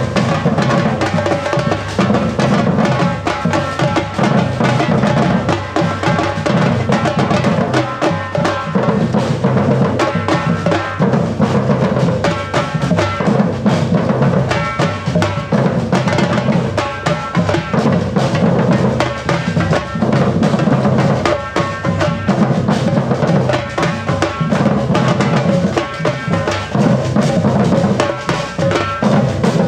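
Afro-Brazilian percussion band drumming a continuous, driving rhythm: deep drums under fast, sharper strokes.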